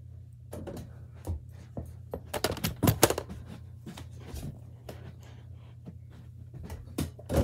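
A rapid series of knocks and rattles, with the loudest cluster of sharp hits about three seconds in and another near the end: a small rubber basketball being shot at an over-the-door mini hoop, clattering off the backboard and rim. A steady low hum runs underneath.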